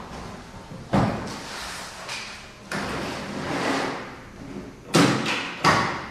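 A suitcase being handled: two long scraping, rustling stretches as it is set down and moved, then two sharp clicks a little over half a second apart as its latches snap open.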